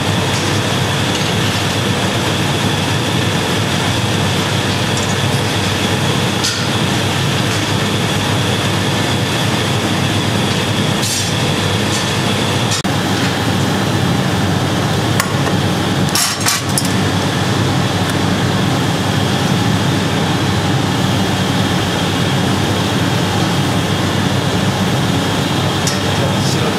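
Steady, loud noise of a glassblowing workshop's gas-fired furnaces and their blowers running, with a few light clicks.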